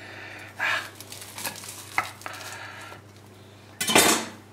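Baked puff pastry crackling and crunching as a kitchen knife cuts through it on a ceramic plate, with a few faint clicks from the blade, and a louder sharp noise about four seconds in.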